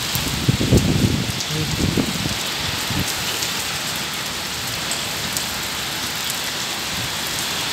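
Heavy rain pouring onto a flat rooftop terrace, a steady, even hiss. A few low rumbles and thuds come through in the first three seconds.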